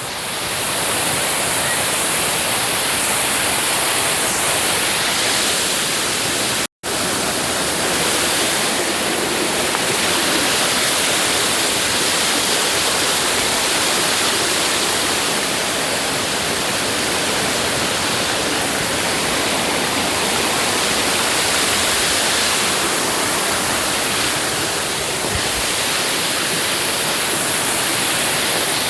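Rushing water from a stream or waterfall, a steady hiss that breaks off for a moment about seven seconds in.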